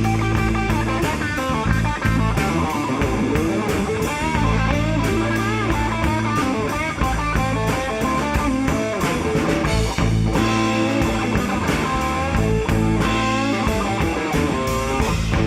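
Live rock band playing an instrumental passage. An electric guitar plays a lead line with bent notes over bass and a steady drum beat.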